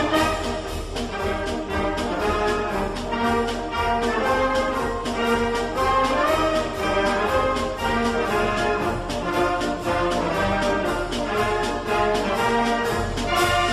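Brass music with held, sustained notes, played continuously.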